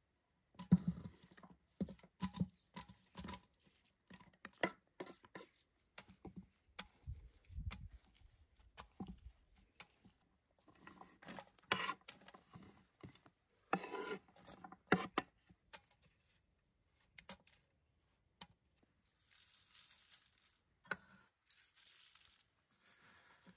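Steel knife tapping and scraping on a wooden cutting board as sliced garlic is pushed off into a glass cylinder, with scattered sharp clicks and knocks and a denser run of scraping about halfway through. A soft, steady hiss follows near the end.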